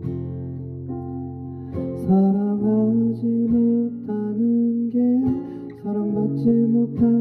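Slow acoustic guitar music, the guitar picked and strummed, with the melody moving in held notes that change about every half second.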